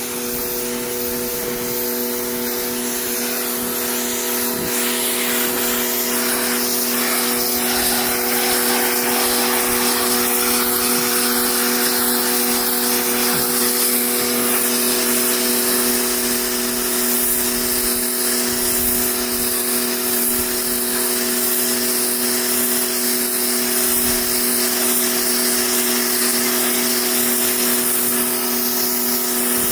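A 2,500 PSI pressure washer running steadily, its motor and pump humming at a fixed pitch under the hiss of the water jet spraying into car seat fabric.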